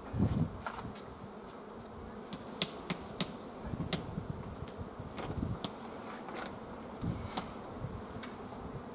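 Honeybees buzzing around an open hive super while its half-frames are lifted out, with scattered light clicks of the wooden frames being handled.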